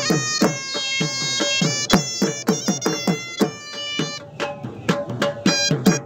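Attan dance music on surnai and dhol: the shrill, reedy double-reed shawm holds long notes over fast, steady drumbeats. The held notes drop back about four seconds in, leaving the drum more to the fore.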